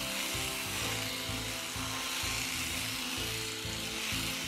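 Background music over the steady whirring of an electric epilator running along a leg.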